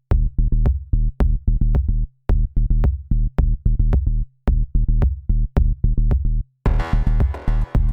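Electronic background music with a steady drum-machine beat and synth bass; a brighter, fuller layer comes in near the end.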